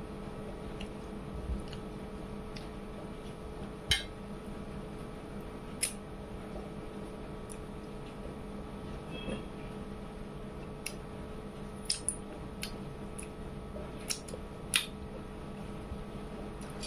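Eating by hand: fingers wiping the last of a curry off a plate, heard as scattered sharp clicks and small wet sounds, over a faint steady hum.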